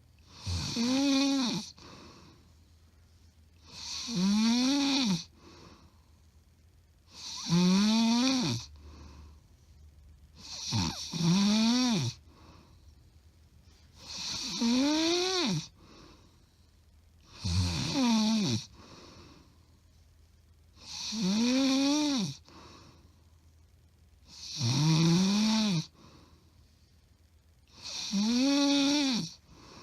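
A woman snoring loudly in her sleep, recorded up close: nine snores, one about every three and a half seconds, each about a second long with a tone that rises and then falls, and quiet in between. The uploader says this loud snoring is not sleep apnea.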